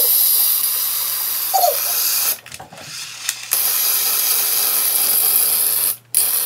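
Aerosol silly string spraying in long, steady hissing spurts. It stops a little past two seconds in and resumes about a second later, then breaks off briefly near the end before starting again.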